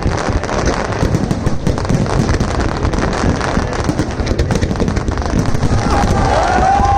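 Fireworks display: a dense, continuous barrage of bangs and crackling. Voices join in near the end.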